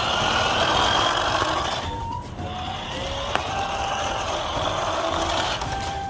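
Small electric motor of a remote-control toy car whirring and its plastic wheels rolling on rough concrete, in two runs with a short pause between them.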